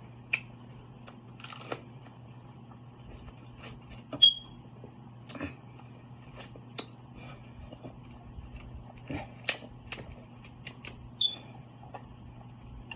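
Eating sounds from a seafood boil: scattered clicks and cracks of shells being broken and peeled, with wet chewing, including two sharp short squeaks about four and eleven seconds in. A steady low hum runs underneath.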